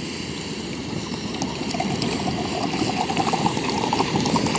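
Water pouring from a plastic bottle into a Jetboil Zip stove's cooking cup, a steady trickling stream that grows a little louder as it goes.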